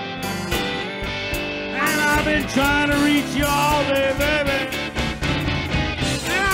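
Live blues-rock band playing a slow blues, drums and bass under a lead line; about two seconds in the lead comes to the front with long notes bent up and down, the way an electric guitar solo bends its strings.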